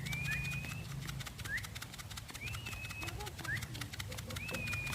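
Birds calling: repeated high whistled notes, some short rising chirps and some longer held notes, with a few faint low pigeon coos around the middle, over a steady low hum.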